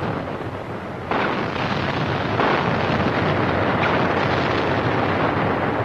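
Naval gunfire and explosions on an old film soundtrack: a continuous noisy battle din that jumps louder about a second in and again at about two and a half seconds.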